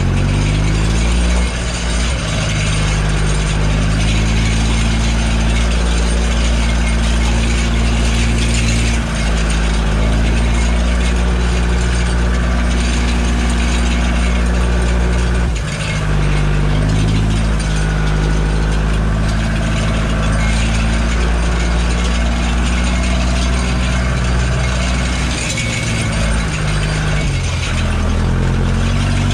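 Fendt 308 LSA tractor's four-cylinder diesel engine running steadily under load while pulling a meadow harrow, heard from inside the cab. The engine note dips briefly about 16 seconds in and again around 26 seconds.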